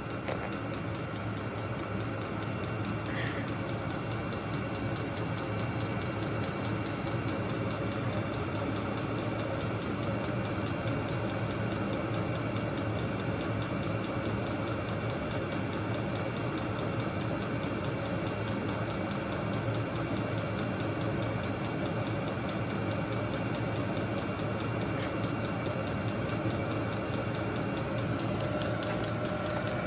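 VEVOR 8 kW diesel air heater running: a steady whir from its combustion and air blowers, with the fuel dosing pump ticking in an even, rapid rhythm as it meters diesel to the burner.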